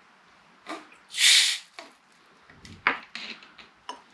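A can of Cherry Pepsi cracked open by its ring-pull: a short sharp hiss of escaping gas about a second in, followed by a thud and a few light clicks and knocks.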